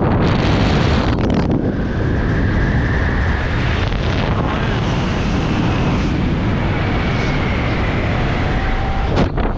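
Wind rushing steadily over a helmet camera's microphone in flight under an open parachute canopy, with a faint wavering whistle at times.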